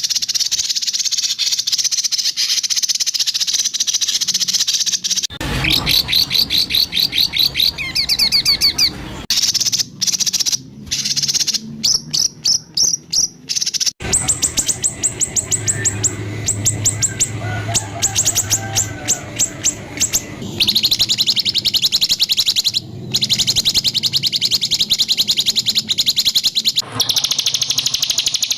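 White-rumped shama (murai batu) song: fast volleys of harsh, repeated high notes and trills, the 'tembakan kasar' phrases used to provoke a shama to sing. The recording is spliced, cutting abruptly from one phrase to the next several times.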